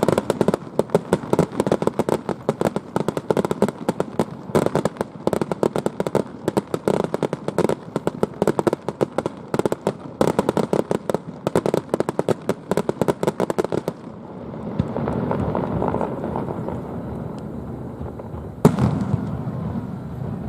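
Fireworks: a dense, rapid crackle of many small bursts for about fourteen seconds, then a steadier lower rumble, broken by one loud sharp bang near the end.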